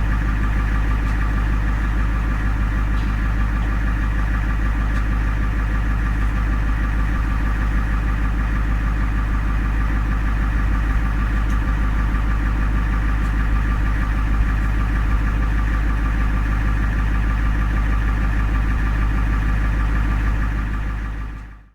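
Ambulance engine idling steadily, heard from inside the vehicle: a constant low hum with a steady whine above it, fading out near the end.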